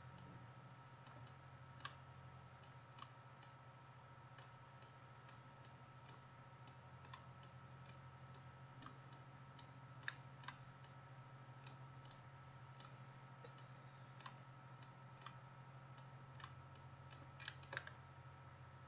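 Faint computer mouse clicks, irregular, about one or two a second with a quick cluster near the end, over a steady low hum.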